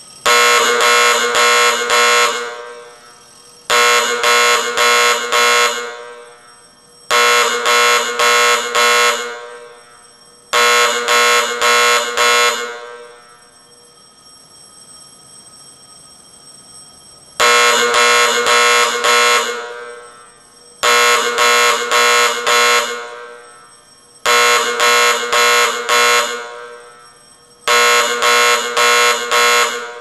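Fire alarm gong ringing out a coded signal: quick runs of four or five strokes, each ring dying away between runs. Four runs come a few seconds apart, then a pause of about five seconds, then four more runs.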